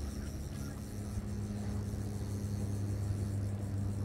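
Low, steady engine drone of a small aircraft flying over, growing gradually louder.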